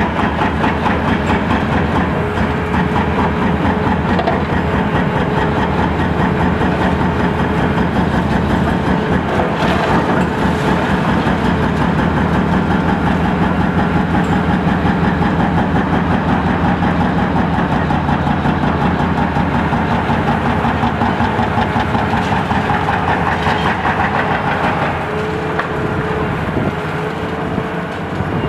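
Etec 888 high-reach demolition excavator running under load, its engine and hydraulics working the boom, with a steady whine over the engine note. It drops a little in level near the end.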